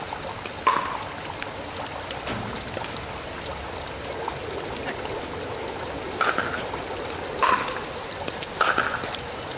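Steady rain hiss with sharp hits of paddles on a plastic pickleball: one about a second in, then three in a rally near the end, a little over a second apart.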